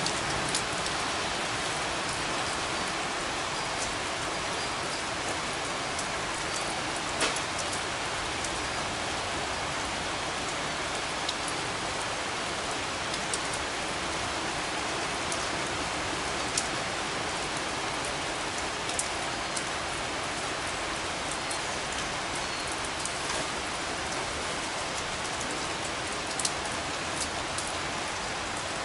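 Steady rain falling: a dense, even hiss that holds at one level, with scattered sharp taps now and then.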